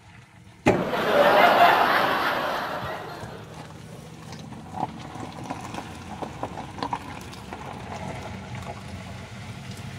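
Ride noise from a moving Bajaj Maxima Z three-wheeler on a rough, potholed road. A rush of noise starts suddenly about a second in and fades over the next few seconds, leaving a steady low hum with faint scattered rattles.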